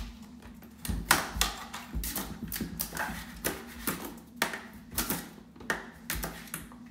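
A puppy scrambling through a flap-style pet door: irregular clicks and knocks, about two or three a second, from the flap against its frame and claws on a tile floor, over a faint steady hum.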